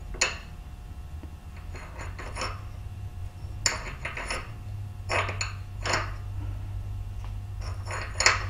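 Scattered sharp metal-on-metal clinks as a steel R8 collet is slid in and out of a Bridgeport milling machine spindle and an Allen wrench adjusts the collet alignment set screw. The collet is being tested for fit against the new screw. A low steady hum runs underneath.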